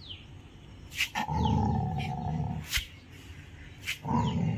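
Rottweiler growling: a long, low growl starting about a second in, then another starting near the end.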